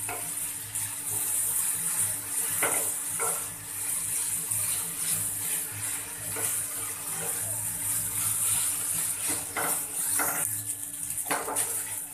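Wheat noodles with egg and vegetables sizzling in a nonstick pan over high flame while being stirred and tossed with a wooden spatula, which scrapes against the pan now and then. A steady low hum runs beneath.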